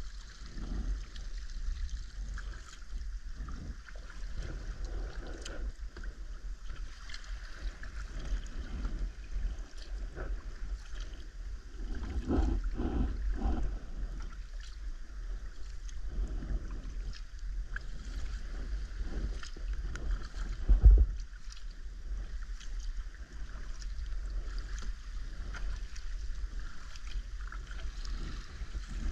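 Sea kayak paddling through calm water among rocks: irregular splashing and lapping of paddle strokes and water against the hull, over a steady low rumble. One louder thump about two-thirds of the way through.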